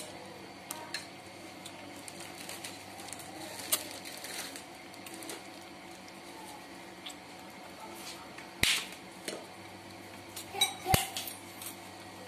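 Scattered clinks and scrapes of tableware as people eat: spoons and dishes knocking lightly, with a few sharper knocks near the middle and toward the end.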